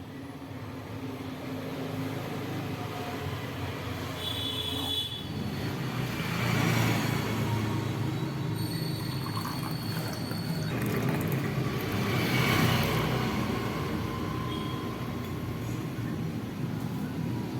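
Hot masala chai being poured, with a splashing pour that swells twice, about six seconds and about twelve seconds in.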